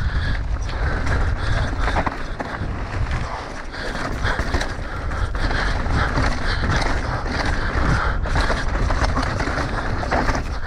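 Mountain bike riding fast down a dry, rocky dirt trail: tyres crunching over dirt and loose stones, the bike rattling and knocking over bumps, with a steady rush of noise on the camera microphone.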